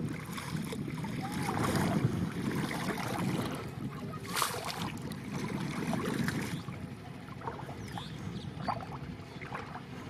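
Shallow river water sloshing and splashing as a wading fisherman moves his legs and works a bamboo-framed hand net through it, with a brief sharper splash near the middle.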